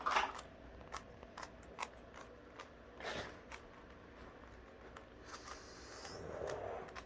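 Plastic twisty puzzle being turned by hand in a speed-solve: faint, irregular clicks as the layers snap round.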